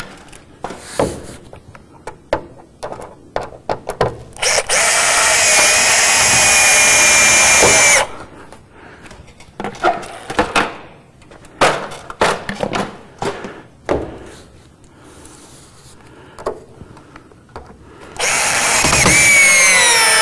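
Power drill driving screws into a sauna's roof dust cover: two runs of several seconds, the second one's pitch sagging toward the end, with scattered knocks and clicks of handling the screws and panel between them.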